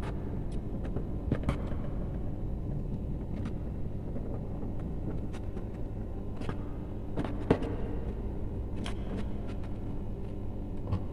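Electrical wires being pulled through plastic conduit and worked into a plastic junction box: scattered light clicks and scrapes of handling. Under them runs a steady low rumble.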